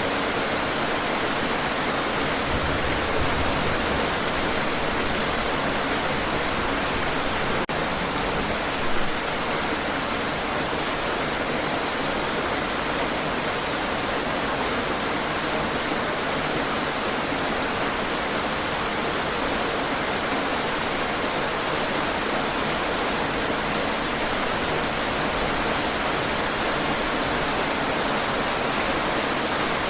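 Steady, heavy rain falling: a dense, even hiss of raindrops with an occasional louder drop.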